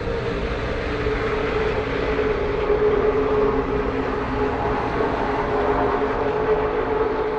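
Stock car engine running at high, steady revs, a sustained drone holding nearly one pitch and swelling slightly in the middle.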